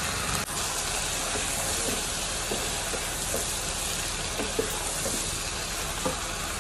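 Chicken and chopped green capsicum sizzling steadily in a non-stick pan over a medium gas flame, with a few faint scrapes and taps of a wooden spatula stirring.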